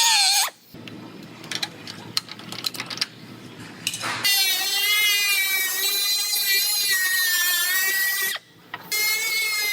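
A few seconds of light clicks and taps, then a power tool running with a steady high whine whose pitch wavers slightly as it cuts, stopping for a moment near the end. This is typical of trimming sheet-metal body panel sections for a welded seam.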